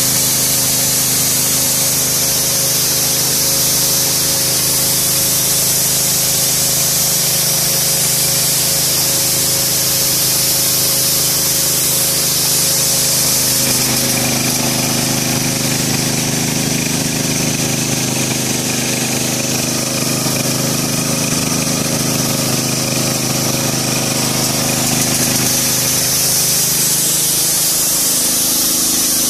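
Vehicle-mounted ULV cold fogger spraying mosquito insecticide: a loud, steady hiss of air and mist through its nozzles over the hum of its engine-driven blower. The hum shifts in pitch about halfway through and again near the end.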